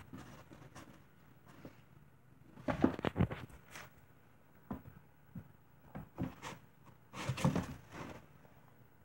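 Kittens scrabbling and batting about in a cardboard box: bursts of scratching, rustling and light thumps on the cardboard, loudest about three seconds in and again about seven seconds in.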